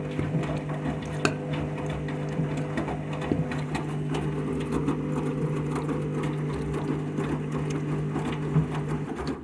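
Front-loading washing machine running through a rinse with a full load of joggers: a steady motor hum with light clicking and rattling from the drum, cutting off suddenly at the end.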